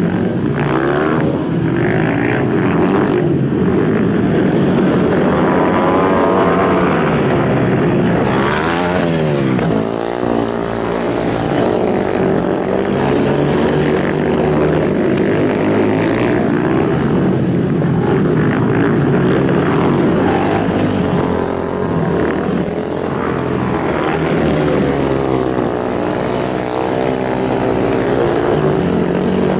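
Racing superbike engines running hard at high revs, several at once, with a rise and fall in pitch about nine seconds in as one passes close.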